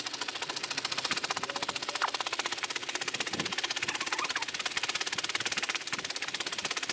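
Built-in foot pump of an Elegear inflatable sleeping mat being trodden fast, a rapid even ticking of about ten clicks a second.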